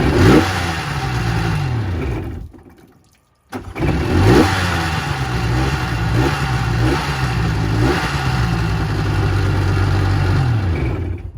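1200 XL jet ski engine being revved up and down in repeated blips. It dies away about two and a half seconds in, starts again about a second later, and keeps revving before it shuts off near the end.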